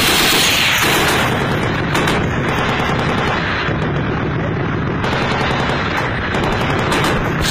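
M2 Browning .50-calibre heavy machine gun firing on automatic: a continuous stream of loud, rapid shots.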